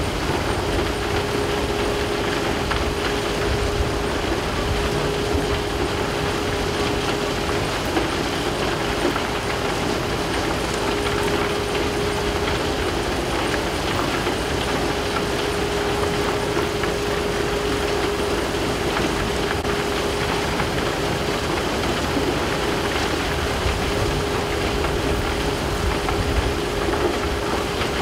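Recycled-aggregate plant machinery running steadily, including a stacker conveyor's geared electric drive, with fine sand and stone pouring off the belt head. A steady mid-pitched hum over a constant rumble and hiss, with no breaks or distinct knocks.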